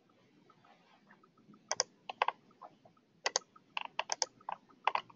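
Clicking of a computer keyboard and mouse at uneven spacing, several in quick pairs, starting about a second and a half in.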